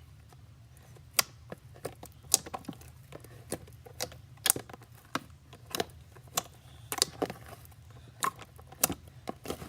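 Slime being poked and squeezed by hand, giving a string of sharp, irregular popping clicks, about one or two a second, as air bubbles trapped in it burst.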